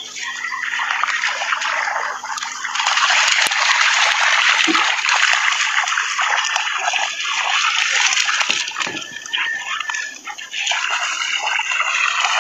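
Two dogs running and splashing through shallow seawater: a steady sloshing, splashing hiss that eases for a moment about ten seconds in, then picks up again.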